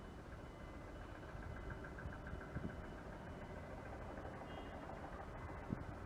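Steady low rumble of vehicle engines idling and running nearby, with two soft thumps.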